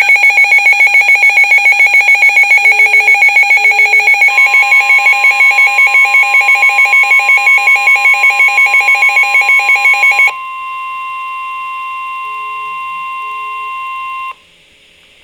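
Emergency Alert System alert tones for a flood warning: a loud pulsing alarm tone, about five beeps a second, joined about four seconds in by a steady single tone. The pulsing stops about ten seconds in, and the steady tone carries on more quietly for about four more seconds before cutting off.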